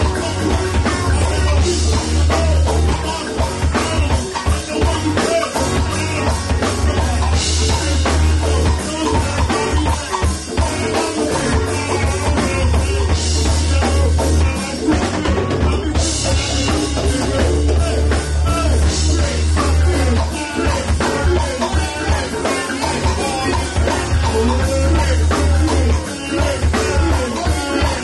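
Live band playing at full volume: drum kit with a heavy low end and electric guitar, with several voices singing over it. Cymbals wash brighter for a few seconds at a time.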